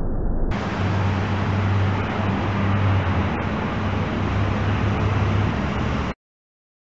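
Steady low rumble of outdoor background noise with a steady low hum, cutting off abruptly about six seconds in.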